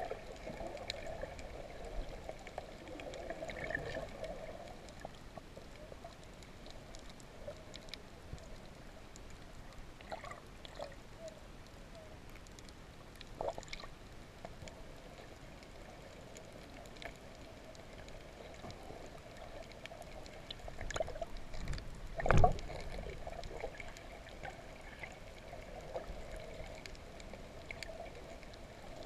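Muffled underwater ambience heard through a submerged camera: a steady wash of water noise with scattered faint clicks and crackles, and one loud knock about three quarters of the way through.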